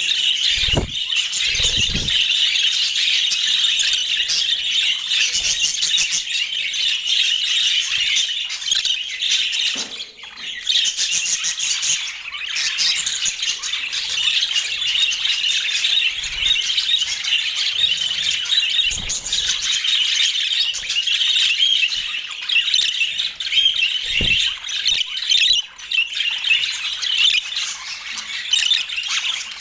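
Flock of budgerigars chattering and chirping continuously, a dense mix of warbles and squawks, with a few soft low thumps.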